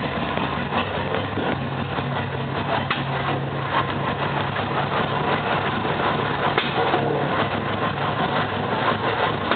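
Subaru STI's EJ257 turbocharged flat-four idling steadily, with a weird irregular light ticking over the engine note. It is the noise the owner cannot place after doing TGV deletes and reassembling the engine.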